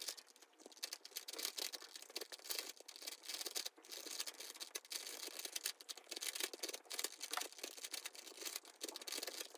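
Dense, rapid clicking and clattering of a Megaminx's plastic layers being turned by hand in quick succession.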